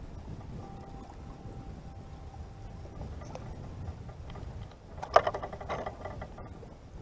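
Low steady rumble of wind and water around a Lifetime Tamarack sit-on-top plastic fishing kayak, with a sharp knock and brief ringing clatter about five seconds in.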